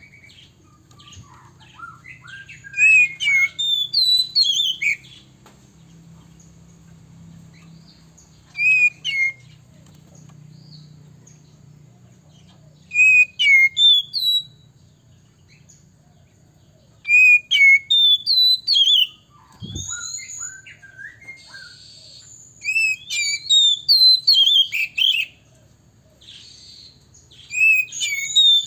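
Male oriental magpie-robin singing in loud bursts of sharp, whistled phrases with quick up-and-down glides. The bursts come every few seconds with short pauses between them. This is the kind of song used as a lure to rouse other magpie-robins into singing.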